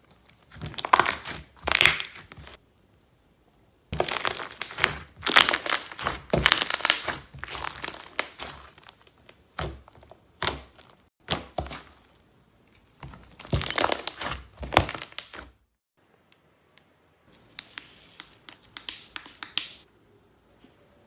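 Slime being squeezed and stretched by hand, crackling and popping in repeated bursts with short pauses between them. The sound starts and stops abruptly a few times, as at cuts between clips.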